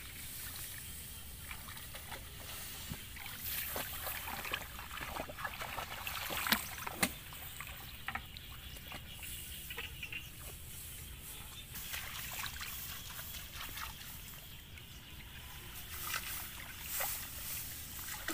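Someone wading through a flooded rice paddy: irregular splashes and trickling water, with rice leaves brushing past.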